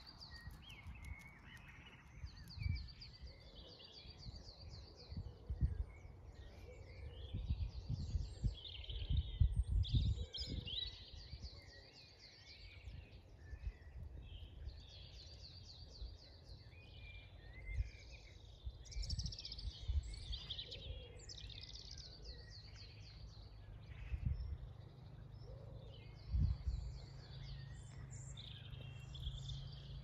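Several garden birds singing at once, with overlapping songs, quick repeated trills and chirps throughout. Low rumbling and thumps sound underneath.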